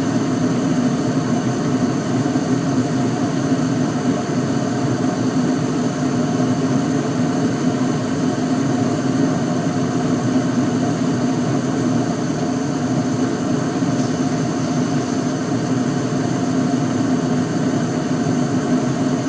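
2001 York gas furnace running with its burners lit and its blower fan on: a steady, even hum.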